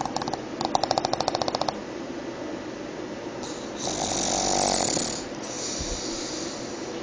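A pug snoring: a rapid fluttering rattle, about a dozen pulses a second, for about a second near the start, then two long, hissy breaths.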